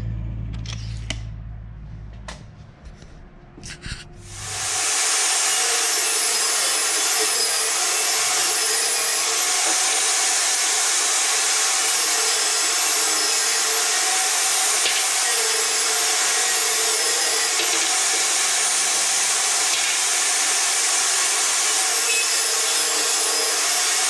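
Compact jobsite table saw ripping a wood board lengthwise. After a few light knocks, the saw starts about four seconds in and then runs loudly and steadily through the cut.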